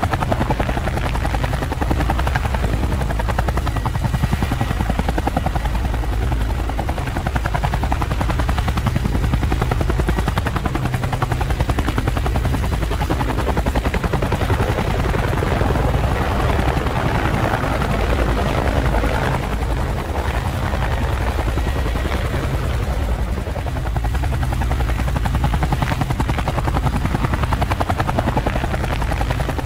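Camera drone's rotors running with a steady, fast-pulsing buzz, swelling slightly in the middle.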